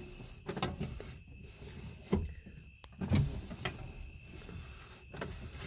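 Scattered knocks and clicks from handling the car's door and interior fittings, the loudest about three seconds in. Behind them, insects chirp, a short high chirp about once a second.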